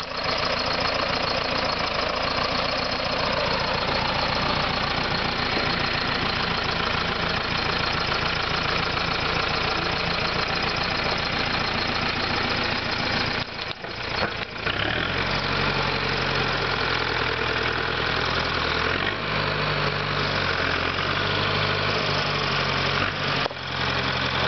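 Small compact tractor's diesel engine running with a clattering knock as it drives over rough, steep ground. About fourteen seconds in the sound briefly dips, then settles into a steadier, deeper engine note.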